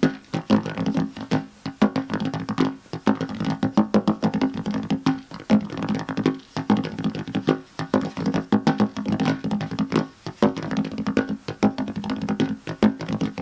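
Music: sustained low tones under a dense, fast run of sharp hits.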